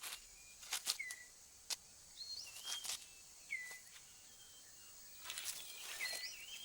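Rainforest ambience: short whistled bird notes, several sliding down and then levelling off, recurring a few times over a thin high hiss, with scattered light clicks.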